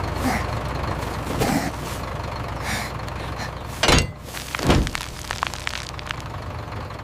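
Steady low mechanical rumble with a few faint clunks, and two loud thuds about four and five seconds in.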